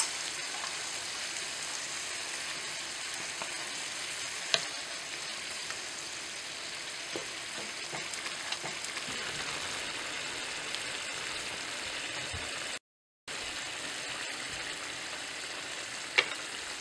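Koi fish curry gravy simmering and sizzling in a nonstick frying pan, a steady hiss as the jhol comes up to the boil with the fish in it. Now and then a wooden spatula clicks against the pan. The sound cuts out for a moment about three-quarters of the way through.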